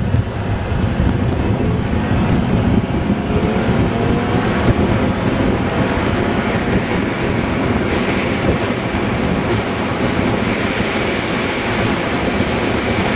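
Vehicle driving at highway speed, with steady low wind buffeting on the microphone over road and engine noise.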